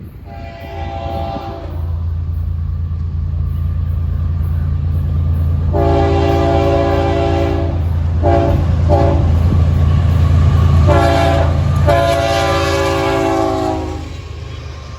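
Florida East Coast Railway GE ES44C4 diesel locomotives approaching with a steady low engine rumble that grows louder, while the lead unit's multi-note air horn sounds a string of blasts. There is a short blast at the start, a long one about six seconds in, two quick short ones, and then a long final blast that ends about a second before the close.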